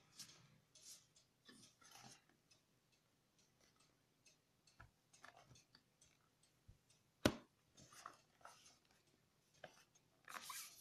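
Faint handling noises of a laptop: scattered light rustles and taps, one sharp click about seven seconds in, and a louder burst of scraping and rustling near the end as the laptop is turned over.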